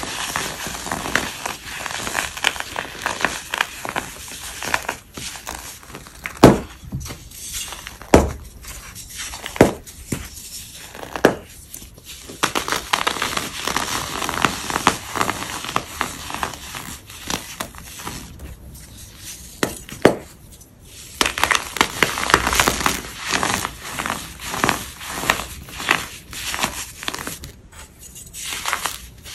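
Hardened powder being crunched and crumbled: a continuous crisp crackling with sharp snaps now and then, the loudest about six and a half seconds in, and a short lull near two-thirds of the way through.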